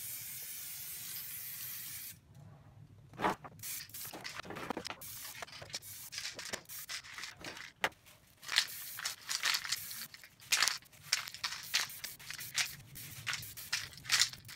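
Aerosol spray paint can hissing steadily for about two seconds, then cutting off. Scattered knocks and scrapes follow, then a dense run of quick rattles and clicks as the can is shaken hard to mix the paint.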